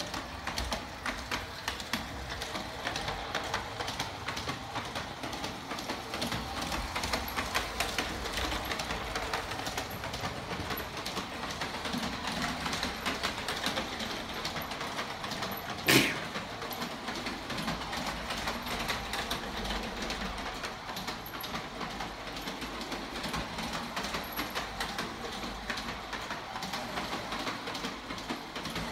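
Toy train running around its floor track, its wheels clicking rapidly and steadily over the rails and joints with a steady mechanical hum underneath. A single sharp knock stands out about halfway through.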